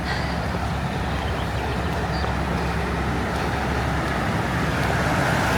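A road vehicle's engine running steadily with traffic noise, a low hum that grows slightly louder toward the end.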